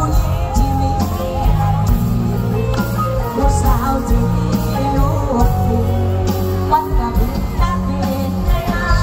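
Live mor lam band music with singing over a steady bass beat.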